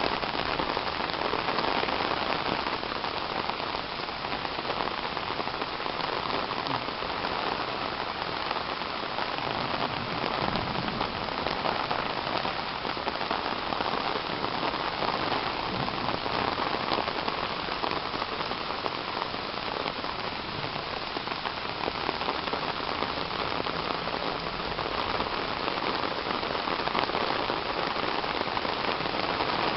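Steady rain falling.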